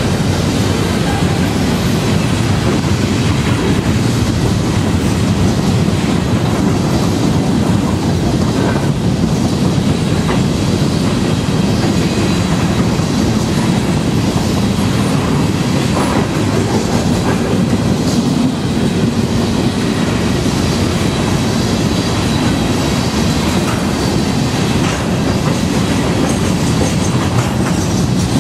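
Empty covered hopper cars of a grain train rolling past close by: a steady rumble of steel wheels on rail, with clickety-clack over the rail joints and a faint high wheel squeal.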